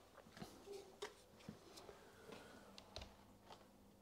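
Near silence with faint scattered clicks and light knocks, the sound of hands handling a wall board and small objects, and a faint steady hum setting in partway through.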